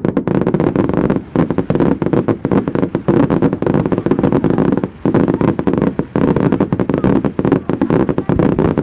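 Fireworks going off in a dense, rapid crackle of bangs, with two brief lulls: about a second in and about five seconds in.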